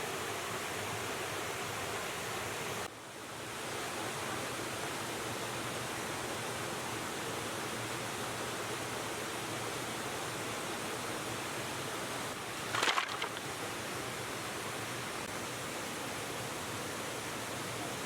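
Steady rushing of a flowing river. The sound dips briefly about three seconds in, and a short, sharper sound stands out about two-thirds of the way through.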